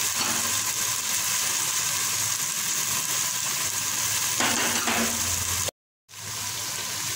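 Chopped tomatoes frying in oil in a pot, a steady sizzling hiss. The sound cuts out for a moment about six seconds in.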